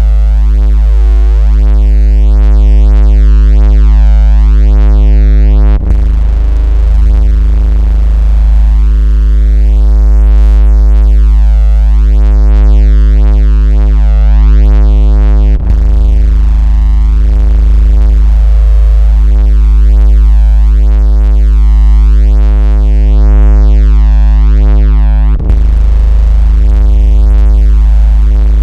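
Synthesized 56 Hz bass vibration tone, a deep continuous hum with overtones, of the kind played to make a phone buzz or shake water out of its speaker. It is very loud and drops out for an instant three times, about ten seconds apart.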